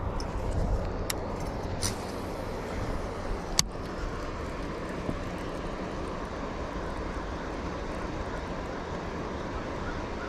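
Steady low rushing noise outdoors, with a few sharp clicks about one, two and three and a half seconds in, the last the loudest.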